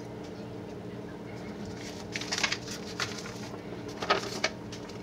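Rustling and handling of a paper sheet, in short bursts about two, three and four seconds in, over a steady low hum.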